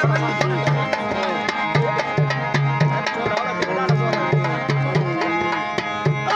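Harmonium playing a melody over held drone notes, with a hand drum beating a steady rhythm underneath, in a South Asian folk song accompaniment.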